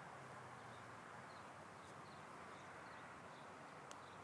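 Near silence: faint outdoor background hiss with a few faint, short high chirps and one small click near the end.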